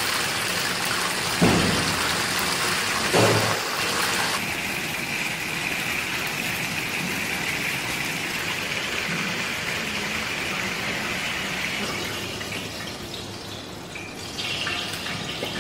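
Chicken wings deep-frying in hot oil, a steady sizzle, with two sharp knocks in the first few seconds as metal tongs hit the pan. The sizzle gets softer after about four seconds and fades toward the end.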